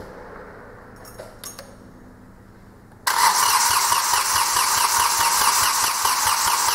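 A few faint clicks, then about three seconds in the starter motor suddenly starts cranking the Hyundai i20's freshly rebuilt 1.1 CRDi three-cylinder diesel with a steady rhythmic chug. The engine does not fire, because air is still in the fuel system and it needs bleeding.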